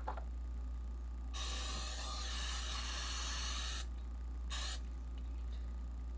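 Aerosol cooking spray hissing out of a can to grease a glass baking dish: one long spray of about two and a half seconds, then a short burst about a second later.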